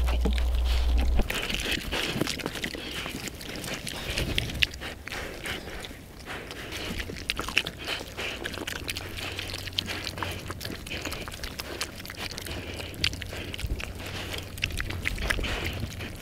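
Twelve-week-old pigs eating vegetable scraps: irregular crunching and chewing with frequent sharp clicks as they bite and root through stalks and bread. A low rumble cuts off about a second in.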